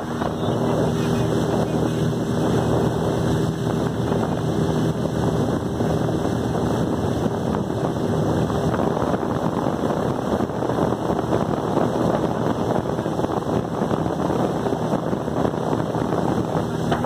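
Speedboat running at speed: water rushing and spraying along the hull over a steady engine drone, with wind buffeting the microphone. The engine's hum is clearest in the first half.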